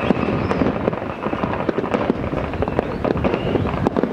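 Fireworks and firecrackers going off across the town: a dense, irregular run of pops and bangs, with no pause.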